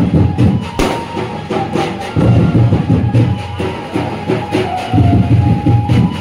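Loud music with heavy, pulsing drum beats and a held melody line.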